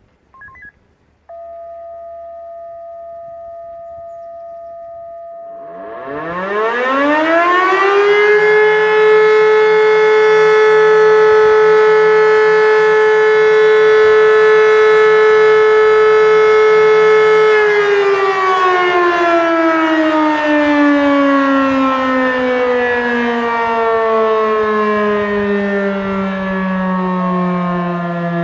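E57 electromechanical civil-defence siren sounding the fire-alarm ('Feueralarm') test signal. A few seconds of a steady electronic tone come first. About six seconds in, the siren winds up, rising in pitch to a steady tone that it holds for about ten seconds. It then winds down in a long falling glide and begins to rise again at the very end.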